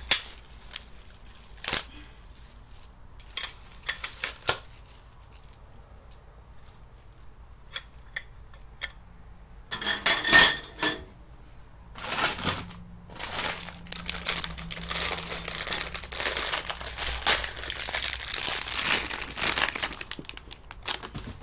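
Packaging being handled as cart parts are pulled from their box: crinkling plastic wrapping and packing foam, with a few sharp clicks. The handling is sparse at first and then nearly continuous for the second half.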